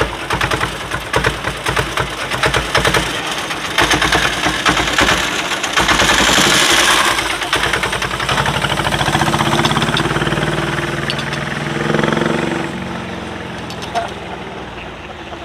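Small engine of a child-sized miniature Peterbilt 379 replica truck running with a rapid, even popping beat, then pulling away with its little flatbed trailer, the engine sound fading over the last few seconds. A brief hiss comes about six seconds in.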